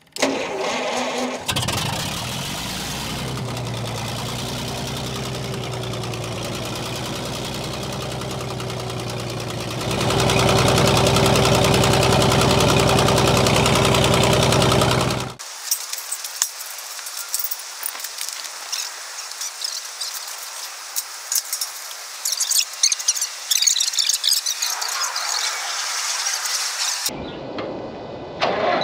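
Minneapolis Moline 605 HEB engine catching on the choke and running steadily, getting louder about ten seconds in as it is throttled up. Its sound stops abruptly about fifteen seconds in. A thin high-pitched hiss with crackling follows.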